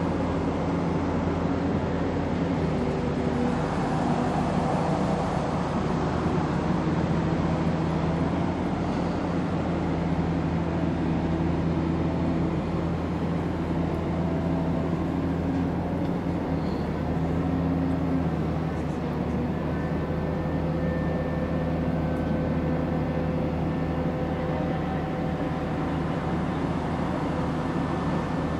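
Steady diesel engine drone from a barge-mounted hydraulic excavator and the work vessels beside it. Fainter higher tones come and go and shift in pitch as the excavator's arm works in the water.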